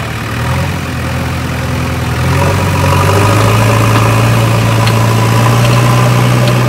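Heavy diesel engine running under load. Its speed rises about two seconds in, and it then holds steady and louder as it works to free a tractor stuck in wet sand.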